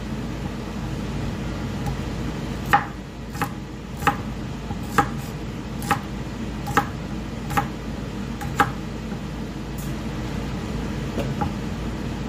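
Kitchen knife chopping green beans on a wooden cutting board: about eight sharp knocks of the blade hitting the board, roughly one a second, through the middle, with a few fainter cuts near the end. A steady low hum runs underneath.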